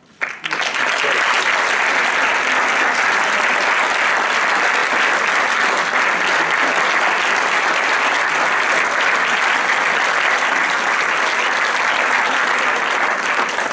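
Audience applause breaking out all at once and holding steady.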